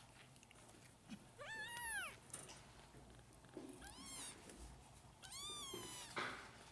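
Young kittens mewing: three high-pitched mews, each rising then falling in pitch. The first and loudest comes about a second and a half in, a short one near four seconds, and a longer one around five and a half seconds, followed by a brief soft knock.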